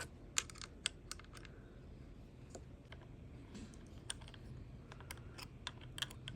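Irregular light clicks and taps of a small hand tool working furniture bolts as they are tightened turn by turn, bunched near the start and again near the end.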